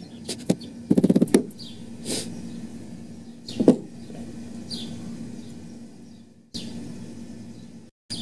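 Hand tools, a file and a wood chisel, worked against a composite deck board and its joist: scattered scrapes and ticks, a quick rattle of clicks about a second in and a sharp knock near the middle. A steady low hum runs underneath, with a few short bird chirps.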